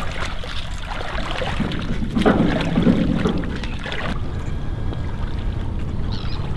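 Shallow sea water sloshing and splashing around a person wading in chest waders, louder for a couple of seconds in the middle, over a steady wind rumble on the microphone.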